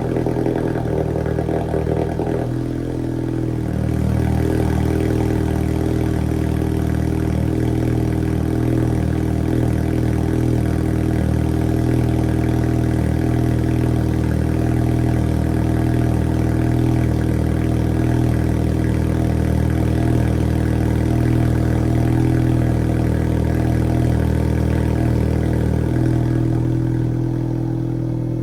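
Turbocharged 1.4-litre four-cylinder engine of a Volkswagen Jetta 1.4T on a Unitronic Stage 2 tune, running at a steady speed. Its note changes about three seconds in and again near the end.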